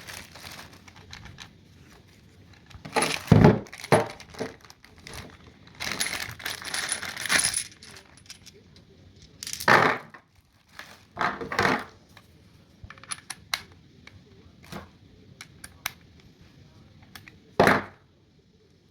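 Small metal parts clinking and knocking together as they are handled, in a string of separate clatters, some with a bright metallic ring.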